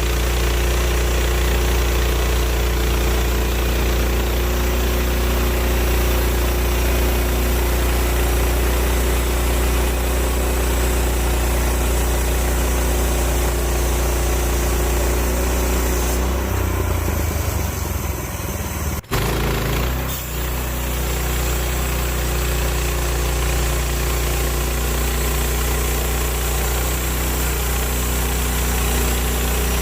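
Small gasoline engine of a bandsaw sawmill running steadily at a constant speed. About two-thirds through there is a brief disturbance and a sharp break, after which the same steady running carries on.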